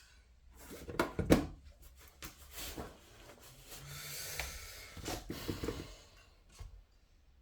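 Hand work with tools: several sharp knocks and clatters, with a stretch of scraping and rubbing in between.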